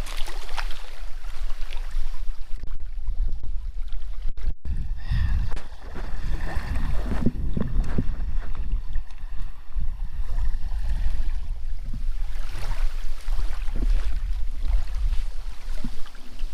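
Strong wind buffeting the microphone in a steady, heavy rumble, with the noise of gusting wind and water behind it.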